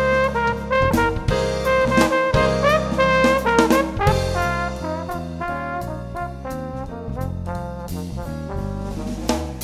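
Background jazz music with brass, bass and drums.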